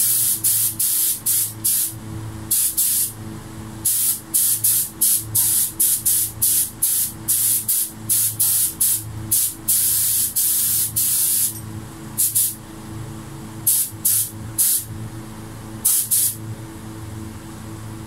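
Gravity-feed air spray gun hissing in quick short spurts, about two to three a second, as the trigger is pulled pass after pass while spraying clear topcoat. After about eleven seconds the spurts thin out to a few scattered ones.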